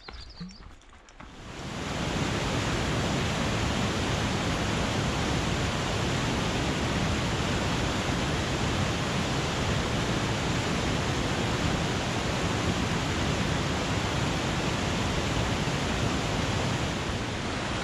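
Whitewater cascade of a mountain creek rushing steadily over rocks, an even, dense wash of water that sets in about a second and a half in.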